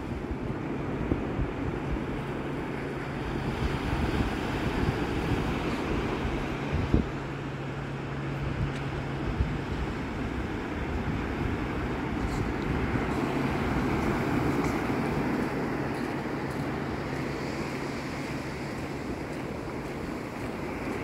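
Atlantic surf rolling in and breaking on the beach, a steady wash of waves, with wind on the microphone. A low steady hum runs beneath it and drops out for a few seconds midway.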